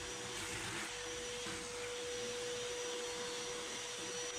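An electric motor running steadily, giving a constant, even whine over a hiss, with no hammering or cutting strokes.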